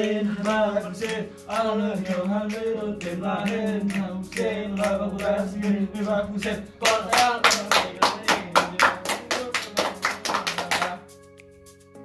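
Likok Pulo dance music: male voices chanting in unison, then from about seven seconds in a run of fast, even percussion strikes about five a second. Near the end it breaks off abruptly into a quiet, held chord.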